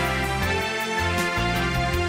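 Background music with a steady beat, laid over the footage.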